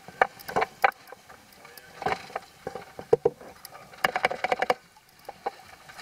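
Water slapping against a small fishing boat's hull, with irregular knocks and clicks aboard.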